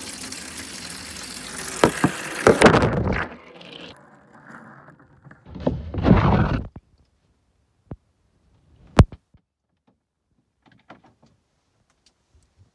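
Water spraying from a hand-held shower head into a plastic washbasin, cut off about three seconds in amid a few knocks. Then a short thump of handling and a couple of sharp clicks, with near silence between.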